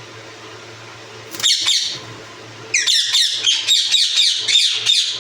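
Ringneck parakeet squawking: a short burst of harsh falling calls, then from about halfway a rapid series of falling calls at about four a second, over a steady low hum.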